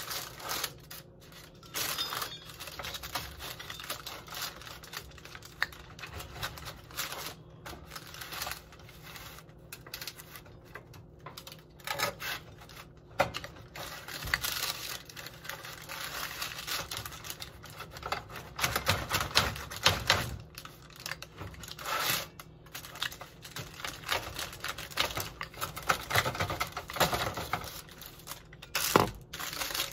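Rolling pizza cutter slicing through a homemade pizza, its wheel clicking and scraping against the metal pan beneath in an irregular run of taps, with parchment paper rustling.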